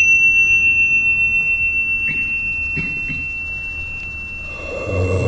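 A bell struck once rings on as a clear high tone with fainter overtones, slowly fading. A faint tap comes about four seconds in, and low sustained music fades in near the end.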